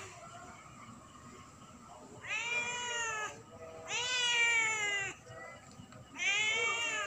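Domestic cat meowing three times, each drawn-out meow about a second long, rising and then falling in pitch.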